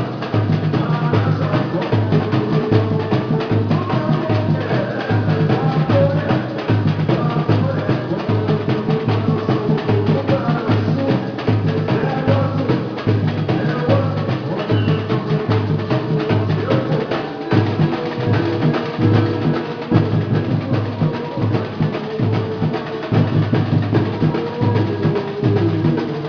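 Batucada-style drum group playing a steady, driving rhythm: deep bass drums beating evenly under denser strokes of smaller drums and hand percussion.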